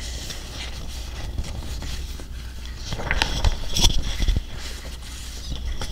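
Loose sheets of printer paper rustling and crackling as they are handled and turned, mostly in a cluster about halfway through, over a steady low hum.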